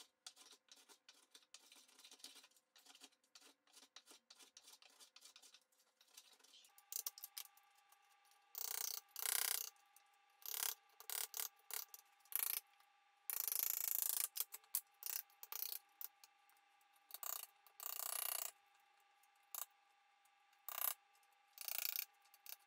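Hand tools scraping and paring oak. First come many quick, light strokes, then louder separate scraping strokes about half a second to a second long.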